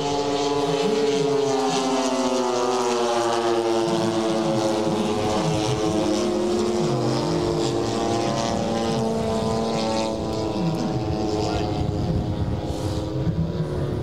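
Propeller engines of several large radio-controlled scale warbird models, mostly Douglas Skyraider A-1s, flying together in formation: overlapping engine drones whose pitch drifts up and down as the planes pass.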